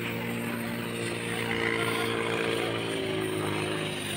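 Heavy construction machinery's engine running steadily, a continuous pitched hum whose pitch wavers slightly around the middle.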